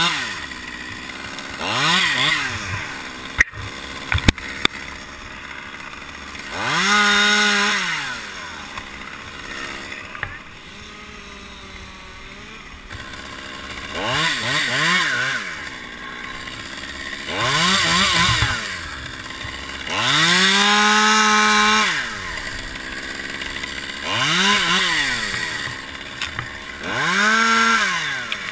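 Small top-handle chainsaw repeatedly revved from idle to full throttle and let fall back, about seven times, several bursts held for a second or two as it cuts. A few sharp knocks come a few seconds in.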